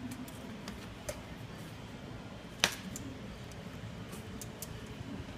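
A few scattered sharp clicks of a hand tool against the toilet tank's bolt hardware as the tank bolts are tightened; the loudest comes about two and a half seconds in, with a few lighter ticks near the end.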